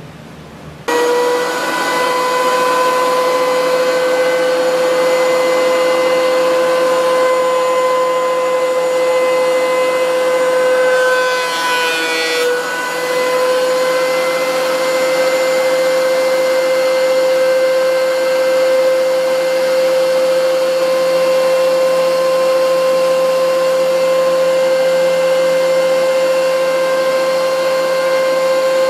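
DeWalt benchtop thickness planer starting about a second in and running with a steady high whine. Around twelve seconds in its pitch briefly drops and a rougher cutting noise comes in as the cutterhead takes a warped board, carried on a shimmed sled, down to a flat face.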